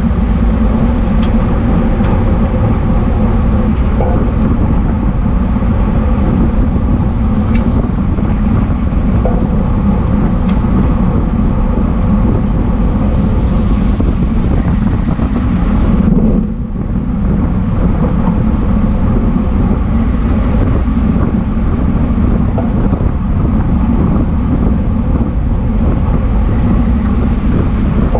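Wind rush and road noise on a bike-mounted camera's microphone riding at racing speed in a bunch of road bikes, with tyre and drivetrain hum, a steady loud noise that eases briefly a little past the middle.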